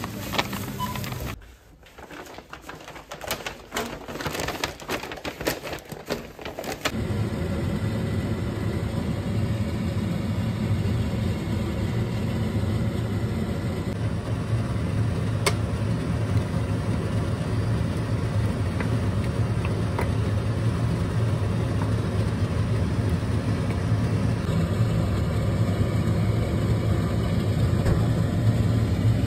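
A steady low mechanical hum runs under stir-frying in a pan, with a few light clicks of a wooden spatula against the pan. Before it come a few seconds of scattered soft clicks and handling noise.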